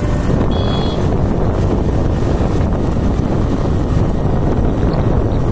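Wind buffeting the microphone as a loud, steady, low rumbling rush. A brief faint high tone sounds about half a second in.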